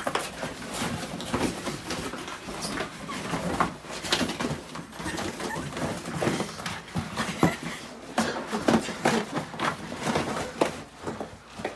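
A dog and a person scuffling in rough play on the floor: irregular rustling and knocking sounds.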